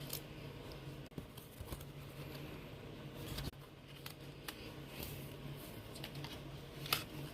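Hands handling photocard packing materials: scattered small clicks, taps and light plastic rustles, one sharper click near the end, over a low steady hum.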